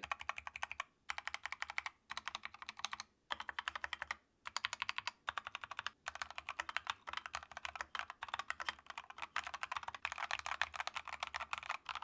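Typing on an Akko 3068B mechanical keyboard in stock form, with Akko's own switches, factory-tuned stabilizers and Akko ASA-profile PBT keycaps. Rapid keystrokes come in runs of a second or two with short pauses between them.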